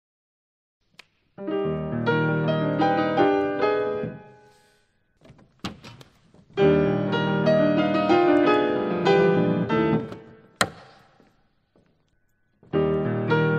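Piano music over end credits, played in short phrases of quick notes with brief pauses between them; a few sharp clicks fall in the pauses.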